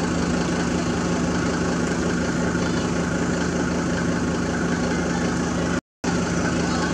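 Steady hum of an idling engine, even in level throughout, broken by a moment of dead silence about six seconds in.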